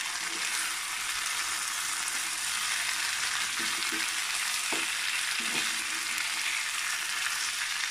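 Pressure-cooked beef, its liquid cooked off, frying in coconut oil in a frying pan with a steady sizzle while a wooden spatula stirs it.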